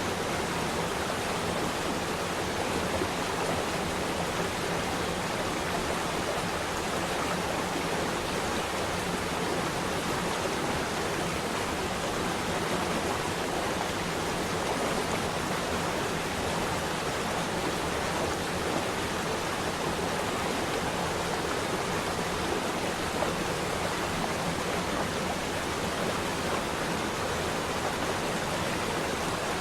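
Flowing water: a stream running in a steady, unbroken rush.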